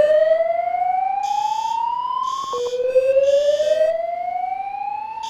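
Fire alarm voice-evacuation system sounding its whoop tone between announcements. A loud tone sweeps slowly upward, breaks off about two and a half seconds in, then starts low again and rises once more, with a fainter high-pitched pulsing about once a second behind it.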